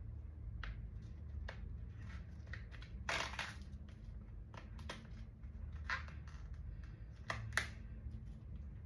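Screen-protector packaging being opened by hand: scattered short clicks and crinkles of packaging, with one longer rustle about three seconds in.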